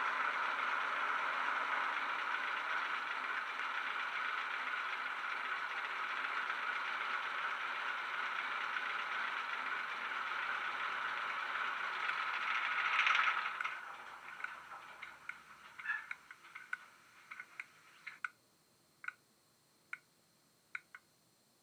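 Recorded Class 08 diesel shunter engine from a DCC sound decoder, played through the model locomotive's small speaker, ticking over with the loco at a standstill. About two-thirds of the way through it swells briefly, then runs down and dies away with rattles, leaving a few sharp isolated clicks, as in an engine shutdown.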